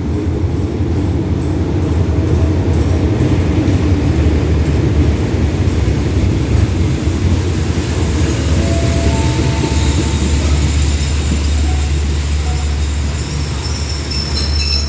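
Hitachi diesel-electric locomotive 4513 hauling a passenger train slowly into the station with a heavy low engine rumble. In the first few seconds its wheels click over the rail joints, the clicks coming further apart as it slows. Near the end a high hiss and thin squeal from the brakes set in as it comes to a stop.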